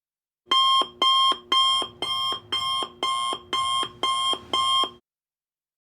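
Electronic alarm beeping: nine short, identical tones about two a second, starting and stopping abruptly.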